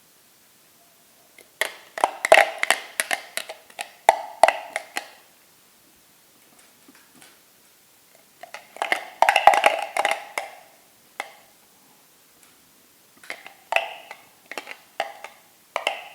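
Diced onion being spread over an upturned bowl: three bursts of quick, light clicks and taps, the first about two seconds in, another near the middle and the last near the end.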